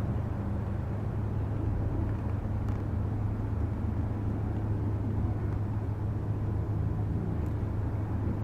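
Toyota 2JZ-GE 3.0-litre DOHC VVT-i inline-six engine idling steadily with an even low hum.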